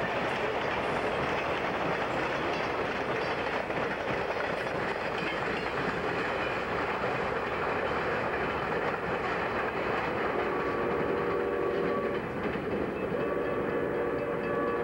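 CSX freight train rolling past, a steady rumble and clatter of wheels on rail. Near the end, two long steady tones sound over it, each lasting about a second and a half.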